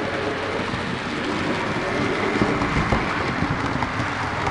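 Model railway train of locomotive and coaches running along the track past the camera: a steady rumble with rapid, irregular clicking of the wheels over the rail.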